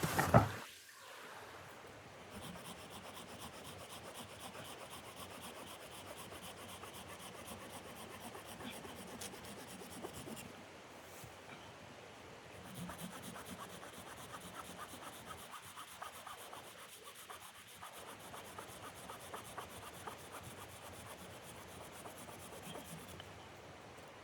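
Steady, fine rasping of something being rubbed or scraped against wood by hand, with a couple of brief pauses, after a sharp knock at the very start.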